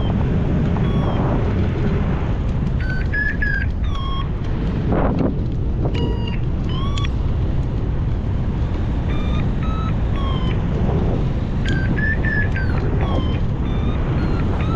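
Wind rushing over the microphone in flight, a steady low roar, with short high tones now and then that step and bend in pitch.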